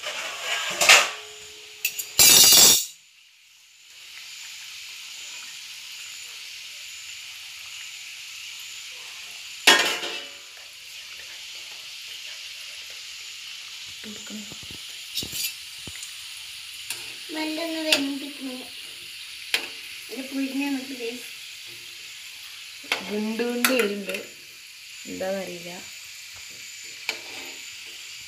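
Hot oil sizzling steadily in a steel kadai as pieces of pal cake deep-fry and are turned over, with light clinks from a metal spoon. Two loud, noisy bursts come in the first three seconds.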